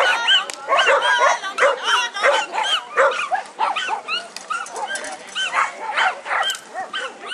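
A dog barking repeatedly in short, high, yapping barks, about two or three a second, which grow sparser near the end.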